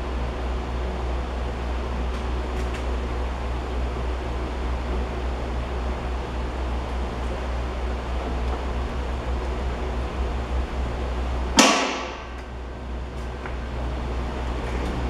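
Steady low hum and hiss of workshop background noise, broken about eleven and a half seconds in by one sudden loud whoosh that fades within half a second.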